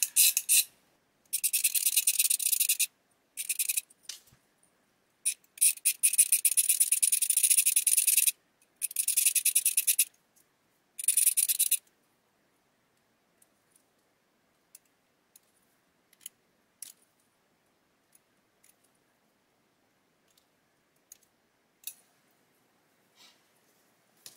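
Hobby scalpel blade shaving plastic from a small model engine cylinder-head part: rapid scratchy scraping strokes in several bursts of one to three seconds through the first half. After that, near silence with a few faint clicks.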